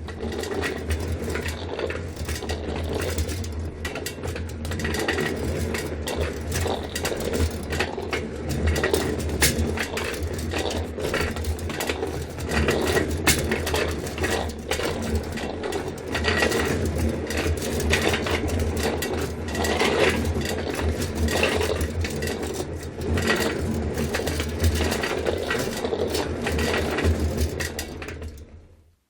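Wheeled trolley rolling continuously, its wheels giving a steady low rumble with many small knocks and rattles. It fades away near the end.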